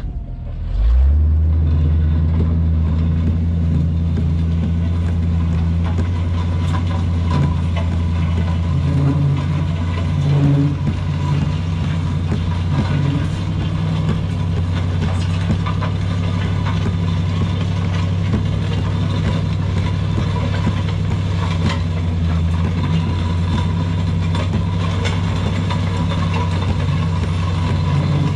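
Pickup truck engine running at low, steady speed while towing a heavy steel land plane on chains, a low drone that sets in about a second in.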